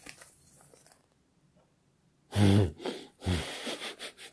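Soft rustle of a paper leaflet being unfolded, then about two seconds in a man laughs in several short, breathy, snorting pulses.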